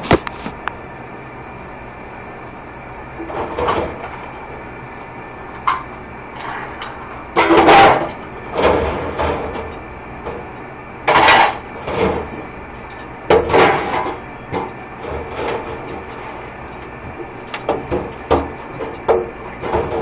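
Stainless steel hotel pans clanking and clattering against each other and the steel sink as they are washed by hand, a dozen or so irregular knocks with short ringing tails. A steady hum runs underneath.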